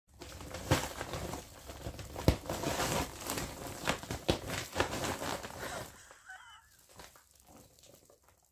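Foil-lined insulated shopping bag crinkling and rustling as a cat shifts around inside it, with a few sharp bumps. It dies down about six seconds in.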